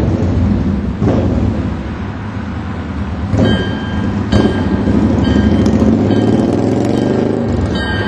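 Distant MBTA EMD GP40MC diesel locomotive approaching with a commuter train, heard as a steady low rumble. From about three and a half seconds in, a thin high ringing tone comes and goes above it.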